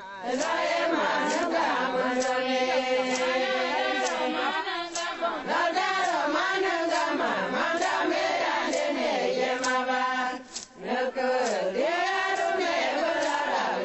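Several voices singing a chant together, with held, wavering notes, over sharp beats at a steady pace.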